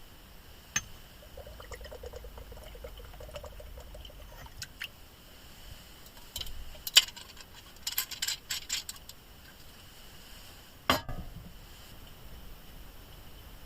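Camp kitchenware being handled: liquid poured for about three seconds, then a series of sharp clinks of glass or metal and one heavier knock near the end.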